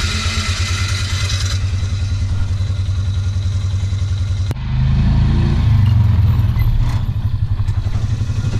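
A vehicle's engine runs with a steady, low, pulsing drone that gets louder about halfway through.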